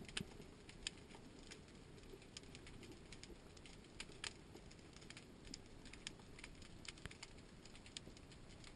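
Quiet underwater sound on a rocky seabed: a faint low wash with scattered, irregular sharp clicks and crackles, the loudest just after the start and two about four seconds in.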